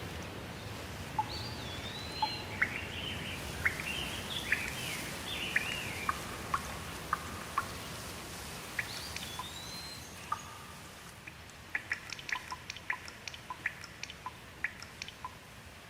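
Rain falling steadily, with birds calling over it in short chirps and whistled glides through the first half. In the second half the rain grows quieter and a quick run of sharp drips takes over.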